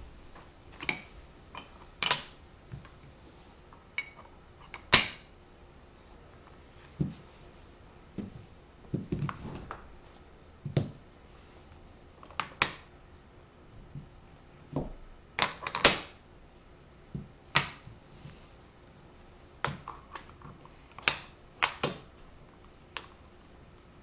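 Tegu magnetic wooden blocks snapping together and being set on a table: irregular sharp wooden clicks, about one every second or two, some with a duller knock. The magnets in the blocks pull them into place with a click-clack.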